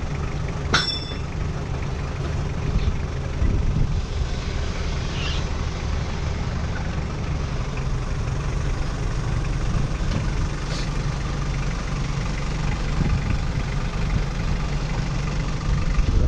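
Fishing boat's engine idling steadily alongside the quay, a low even hum, with a brief squeak about a second in.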